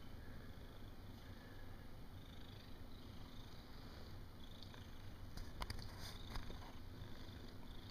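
Calico cat purring while being stroked: a faint, steady low rumble, with a few sharp clicks about two-thirds of the way in.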